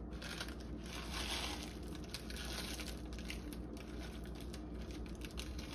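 Plastic ramen noodle packet crinkling as it is handled, with many small crackles throughout.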